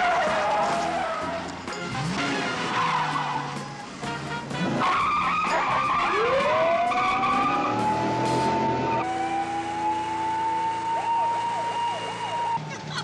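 Cars in a chase, tyres squealing and skidding as they swerve and corner, with engines revving. From about six seconds in a police siren winds up and holds a high wail.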